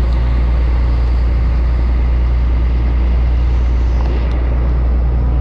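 An engine running at a constant speed, a steady deep low drone with no change in pitch or level.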